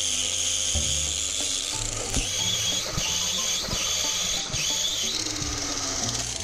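Variable-speed angle grinder with a cup brush running against a rusty flywheel, a steady motor whine with brush scraping, stopping near the end, over background music.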